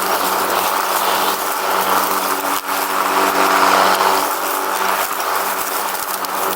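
Lawn mower engine running steadily, with a brief dip in level about two and a half seconds in.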